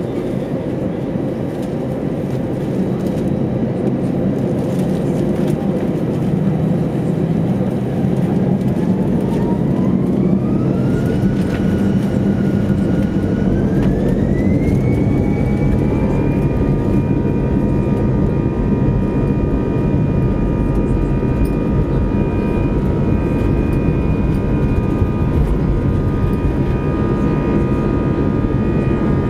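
Airbus A320 jet engines spooling up for takeoff, heard inside the cabin over a steady low rumble. A whine starts rising about eight seconds in, holds briefly at part power, then climbs again and settles into a steady high pitch from about sixteen seconds as the aircraft accelerates down the runway.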